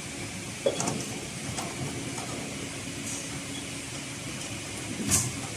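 Steady hum of a powered industrial heavy-thread sewing machine, standing idle rather than stitching. A sharp click comes a little under a second in, and a short click with a brief hiss comes near the end.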